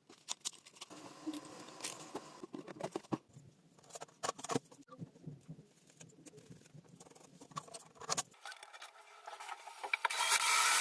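Irregular small clicks, taps and rustling of objects being handled, with a steadier hiss coming up about ten seconds in.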